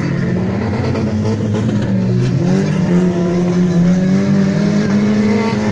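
Several stock car engines running and revving as the cars race on a dirt track, their pitch rising and falling as they go.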